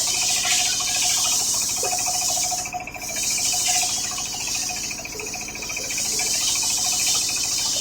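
Homemade circular saw ripping coconut-palm timber: a steady high hiss of the blade cutting, easing briefly about three seconds in, over the steady hum of the machine.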